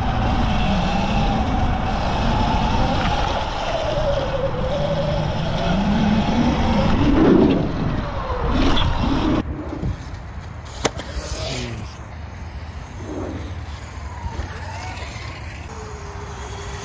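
Sur Ron electric dirt bike riding: a wavering motor whine over rushing wind and tyre noise. About ten seconds in it eases off and gets quieter, followed by a single sharp click.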